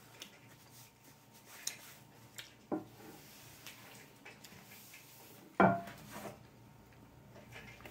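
Paper napkin rubbing and rustling as hands are wiped, with scattered light clicks and knocks on a plate and wooden table. The loudest is one sharp thump about five and a half seconds in.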